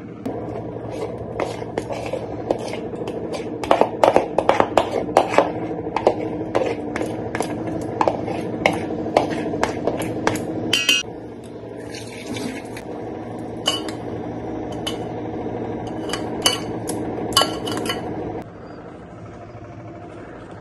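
A steel spoon knocks, clinks and scrapes against a plastic bowl and the rim of a steel pot as thick batter is scraped out onto cauliflower, with a quick rattle of clinks about halfway through. A steady hum underneath stops near the end.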